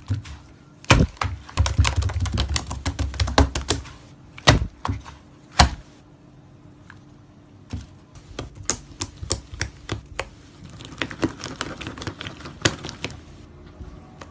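Slime being squeezed and pressed by hand, giving many sharp, irregular clicking and popping sounds, with a quieter stretch about six seconds in.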